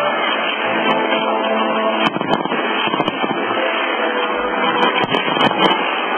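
Fireworks display going off with scattered sharp pops and crackles over a dense, continuous wash of sound, with music playing along.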